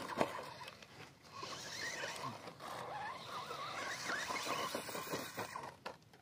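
Small 4WD brushless RC car's electric motor whining at low throttle, its pitch wavering up and down as it creeps and stutters; at such light throttle this motor cogs. A single knock comes just at the start.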